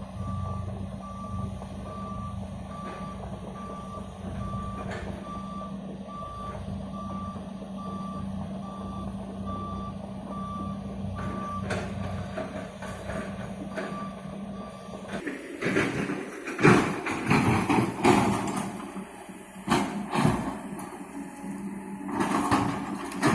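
A heavy machine's engine running steadily, its backup alarm beeping about once a second. About two-thirds of the way through, the beeping and the steady hum stop, and louder irregular clattering and knocking take over.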